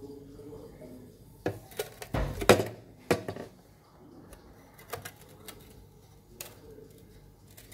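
A glass bowl knocking and clattering against a hard surface as set jelly is turned out of it. There is a quick cluster of sharp knocks, loudest about two to two and a half seconds in, then a few lighter taps.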